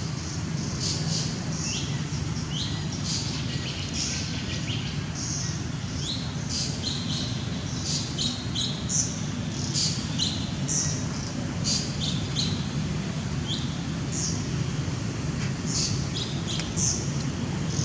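Birds chirping: many short, high calls scattered throughout, some dropping quickly in pitch, over a steady low background rumble.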